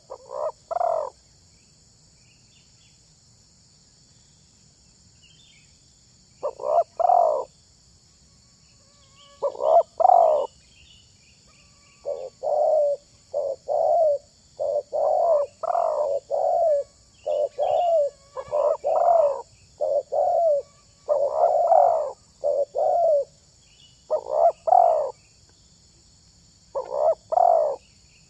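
Spotted dove (tekukur) cooing in short phrases of two or three notes, repeated roughly every second or two after a pause of about five seconds near the start. Faint chirps from small birds are heard between the phrases.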